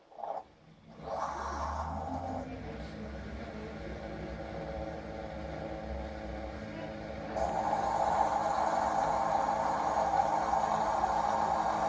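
A machine running with a steady low hum from about a second in; about seven seconds in, a louder rushing noise joins it.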